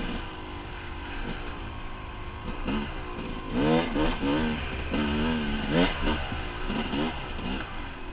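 Dirt bike engine revving up and down as the rider works the throttle, its pitch rising and falling several times in quick succession, busiest in the second half.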